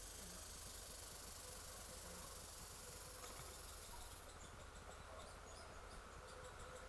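Faint high, steady insect trill that stops abruptly about four seconds in, followed by rapid, faint high chirping.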